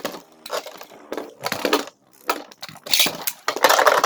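Beyblade spinning tops clattering in a plastic stadium: irregular knocks and scrapes, then from about three and a half seconds in a dense, continuous grinding rattle as the tops clash.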